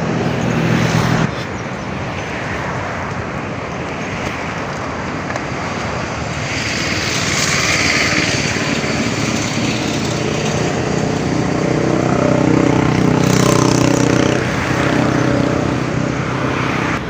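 Road traffic passing: vehicle engines humming and tyre noise, swelling as vehicles go by about halfway through and again near the end.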